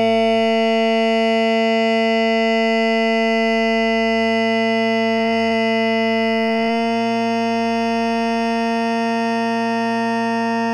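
A sustained, buzzy synthesizer tone held on one steady pitch with many overtones, broken by two brief glitches about five and six and a half seconds in.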